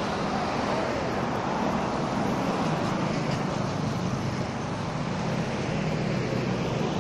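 Road traffic passing on a highway, cars and a motorcycle, as a steady rush over a low, even engine drone.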